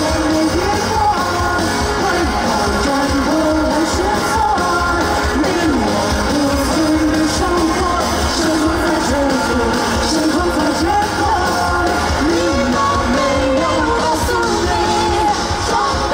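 Live pop-rock band with a lead singer: a sung melody over a band with a steady drum beat.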